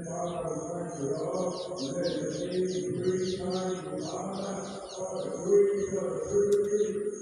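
Background music of slow, sustained chant-like vocal tones, with birds chirping over it in a quick run of short, falling calls in the first half. A faint high pulse repeats about three times a second throughout.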